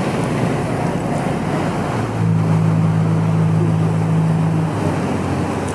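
River water bus under way: a steady low engine hum with the rush of water and wind on the deck. The hum grows louder about two seconds in and eases back near the end.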